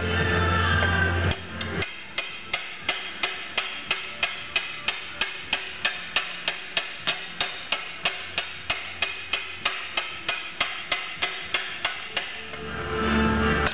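Hand hammer striking sheet metal laid over a phenolic hammer form in a bench vise, about three even taps a second, forming the semi-circle reliefs in a cowl repair panel. Background music plays for about the first two seconds and again near the end.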